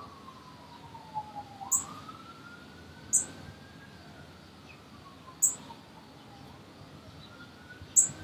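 A faint emergency-vehicle siren wailing slowly, its pitch falling, rising and falling again. Four short, high bird chirps, the loudest sounds, come spaced about two seconds apart.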